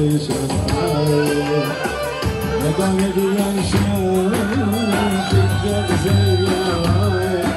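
Music with a singing voice over a steady drum beat and a bass line.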